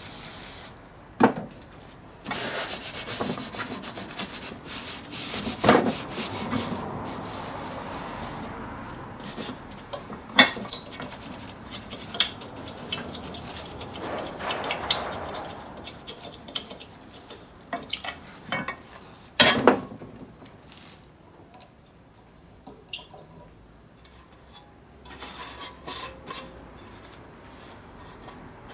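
Rubbing and scrubbing on the metal parts of a small benchtop lathe, in several stretches, broken by sharp metal clinks and knocks as parts are handled: rust being cleaned off.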